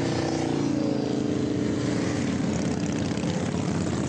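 Motorcycle engine running steadily at low revs, its pitch easing down a little about a second in and then settling.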